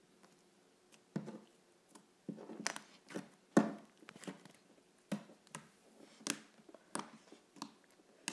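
Blue slime being squeezed, folded and pressed by hand against a wooden tabletop, giving irregular squishy clicks and pops that start about a second in, the loudest about three and a half seconds in.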